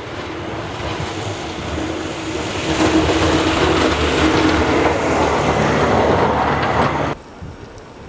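Snow plow truck passing close by with its blade down, engine running and the plow pushing and throwing snow: a loud rush of noise with a steady hum under it that swells over a few seconds and cuts off suddenly near the end.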